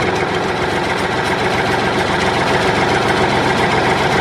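An engine idling steadily with a fast, even chugging.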